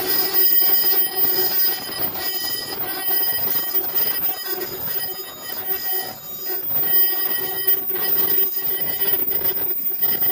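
Fully automatic KF94 mask-making line running: a steady pitched hum with dense, rapid clicking and clattering from its moving mechanisms.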